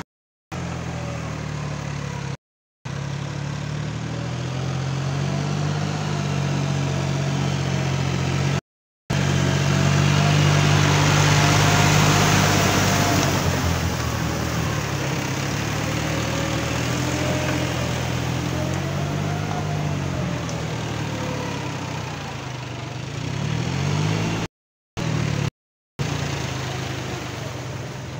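New Holland 4710 tractor's three-cylinder diesel running steadily under load while it pulls a rotary tiller through flooded mud, its engine note shifting in pitch now and then. A wash of churning mud and water swells and fades about halfway through, and the sound cuts out briefly a few times.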